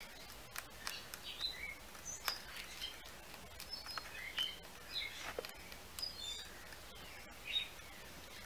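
Luna moth cutting its way out of its silk cocoon with the serrated spurs on its thorax: faint, scattered scratching clicks mixed with short high chirps.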